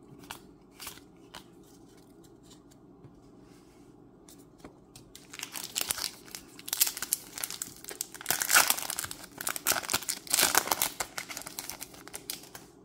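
Magic: The Gathering play booster pack wrapper being torn open and crinkled, a dense loud crackling from about five seconds in until near the end, after a few light clicks of cards being handled.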